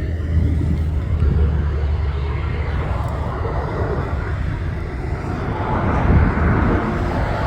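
Jet engine noise from a Boeing 737 MAX 8 airliner on landing approach: a steady, loud rush over a low rumble, swelling louder near the end.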